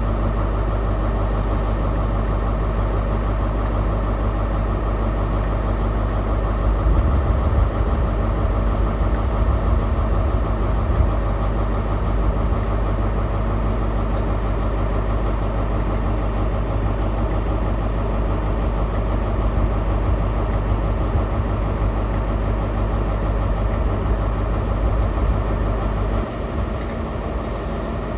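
Diesel train engine idling: a steady low hum that swells a little about seven seconds in and drops in its low end near the end.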